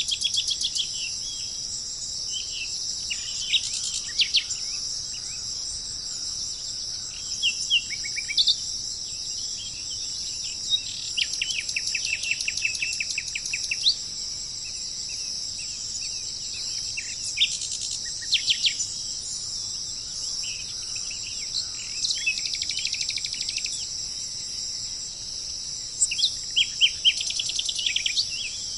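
Songbirds chirping and giving quick trills, several at once, over a steady high-pitched insect chorus.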